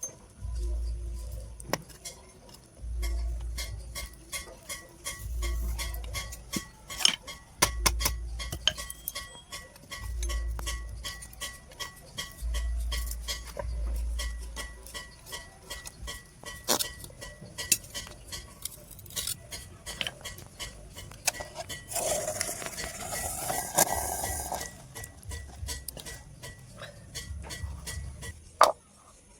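Blacksmith's metalwork: irregular clinks and taps of metal on metal, over a low rumble that comes and goes about every two seconds, with a couple of seconds of rasping hiss about two-thirds of the way through.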